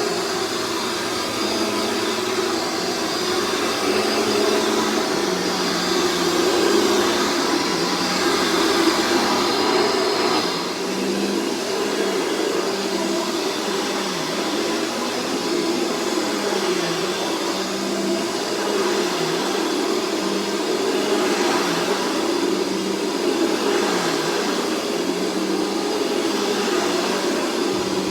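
Dirt Devil Featherlite Plus upright vacuum cleaner running steadily with a motor whine. In the second half its pitch dips briefly every second or two.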